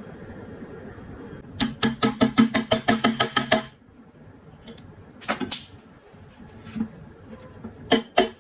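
A rapid run of sharp mechanical knocks, about ten a second for two seconds over a low steady hum, then a few separate knocks.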